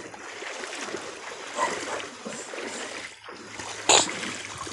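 Shallow creek water sloshing and splashing steadily as people wade through it, with one sharp, loud noise near the end.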